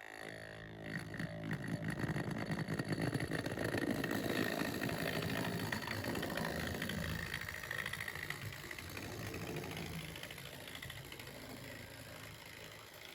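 Hornby Triang dock shunter model locomotive's small electric motor and wheels running along the track, growing louder over the first few seconds and then slowly fading away.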